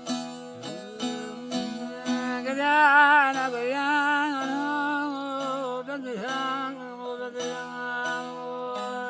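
Kurdish folk music instrumental passage: a plucked string instrument plays quick notes over steady held drone tones. About two and a half seconds in, a louder held melody line with a wavering vibrato joins and carries on until near the end.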